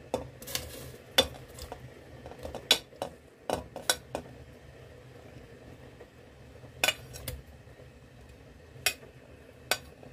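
Metal spoon scraping and clinking against a plate as sliced tomatoes are pushed off into a pot: sharp, separate clinks at irregular intervals, the loudest about a second in.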